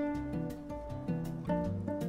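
Background music on acoustic guitar, plucked notes and strummed chords in a steady rhythm.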